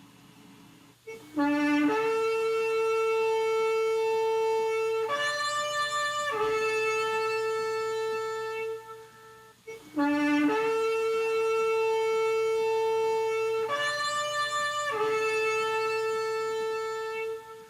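Shofar blown in two long calls. Each opens with a short low note, jumps up to a steady held tone, steps briefly higher partway through and falls back before cutting off.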